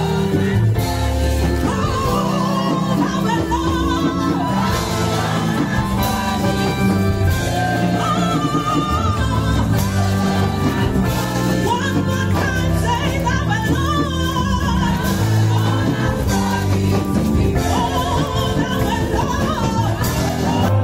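Music with singing voices over a strong, steady bass line.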